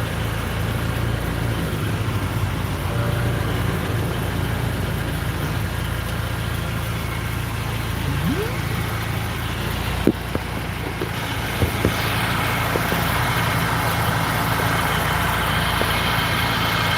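BMW running on the road with steady engine and road noise, and a few short squeaks and clicks about halfway through: the abnormal squeaking from the chassis that the owner is trying to track down.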